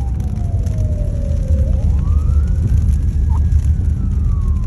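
Emergency vehicle siren wailing: one tone sliding slowly down, rising again about halfway through, then falling once more. Under it runs a steady low rumble of road traffic.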